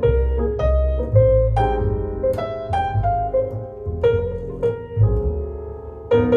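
Instrumental break of a recorded blues ballad played back on a Pioneer C-21 preamplifier and M-22 power amplifier: piano notes struck every half second or so over sustained low bass notes.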